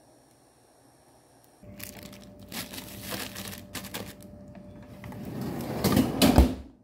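Plastic zipper bag of chopped vegetables crinkling as it is pushed in among frozen packages in a freezer drawer, starting about a second and a half in, with small knocks. Near the end the drawer slides shut with a loud thud.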